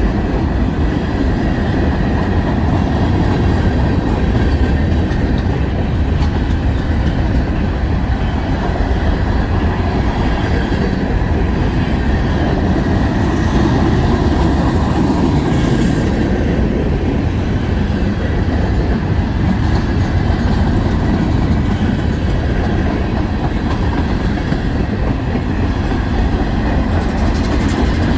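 Freight cars of a long mixed freight train rolling past: a steady rumble of steel wheels on rail, with clickety-clack over the rail joints.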